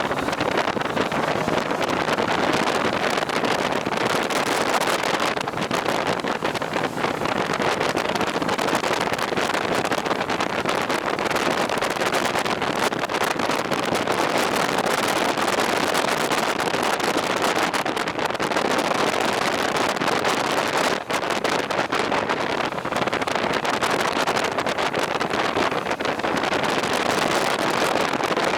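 Steady rushing wind noise on the microphone from riding at speed, loud and constant without a clear engine note.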